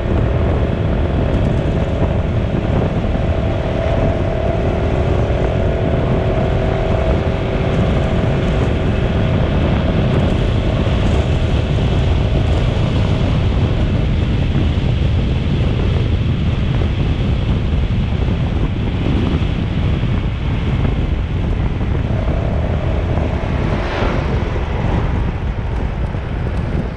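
Steady, loud travel noise of a moving vehicle: a deep, even rumble, with a steady droning tone over it for the first half that returns briefly near the end.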